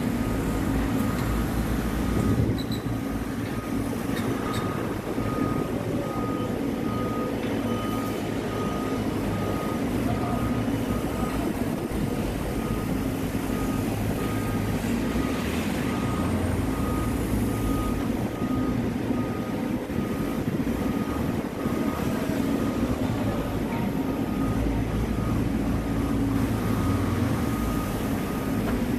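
Hyundai dump truck's diesel engine running steadily as the truck backs over soft dirt, with its reversing alarm giving an even series of high beeps.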